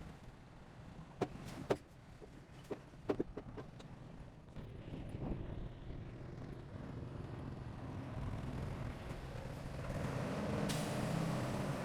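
A heavy construction machine's diesel engine running and growing steadily louder through the second half, after a few sharp knocks in the first few seconds.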